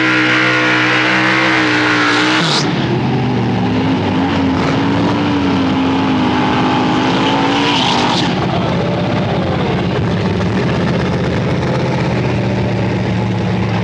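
Drag-racing car engine running hard under a smoky burnout, its pitch wavering, dropping about two and a half seconds in, then holding fairly steady.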